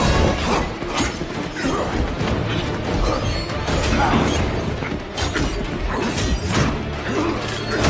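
Plastic action figures and their packaging being handled, with a dense, irregular clattering and clicking.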